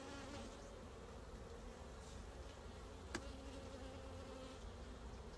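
Honey bees buzzing around an open hive, a faint steady drone, with a single sharp click about three seconds in.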